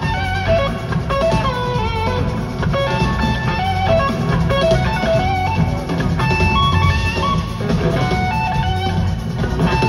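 Live rock band playing an instrumental Latin rock jam: an electric guitar lead line of short notes over bass guitar and drum kit.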